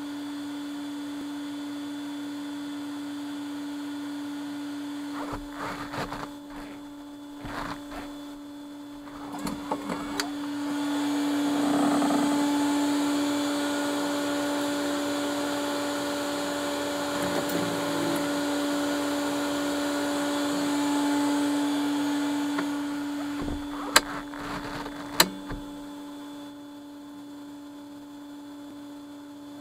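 Steady electrical hum, with knocks and rustling and then a louder whooshing stretch as the car's door is raised. Two sharp clicks about three-quarters of the way through mark the door being brought down and shut.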